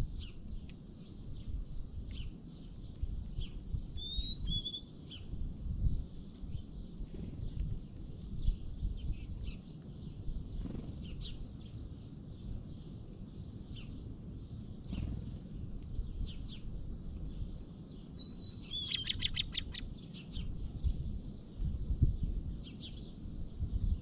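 Small songbirds calling: scattered short, high chirps, a few whistled slurred notes a few seconds in, and a quick rapid trill about two-thirds of the way through. A low, uneven rumble runs underneath.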